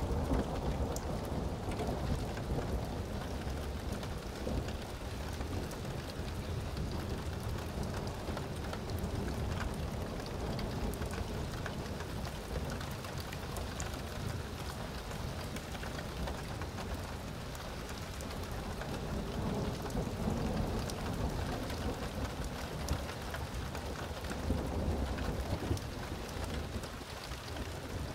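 Thunderstorm: steady rain falling with fine patter of drops, under a low rolling rumble of thunder that swells twice, past the middle and again near the end.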